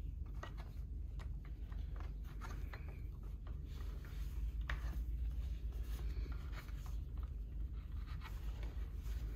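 Allen keys turning bolts in a metal bracket plate on a wooden chair frame: scattered small metallic clicks and short scraping and rubbing sounds as the bolts are hand-tightened, over a steady low hum.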